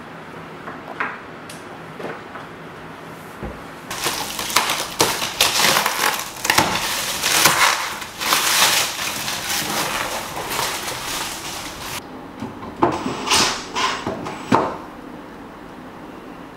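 Plastic film and foam wrapping being torn and crumpled off a wooden tabletop: a dense crackling rustle for several seconds, then a few separate sharp crackles.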